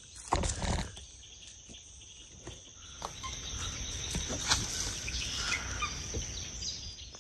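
Steady high-pitched chorus of insects in swamp vegetation, with a few soft knocks and rustles over a low rumble.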